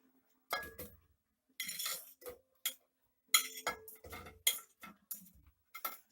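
Metal utensil clinking and scraping against dishes in a string of short, uneven clatters as chopped fruit is put into a blender.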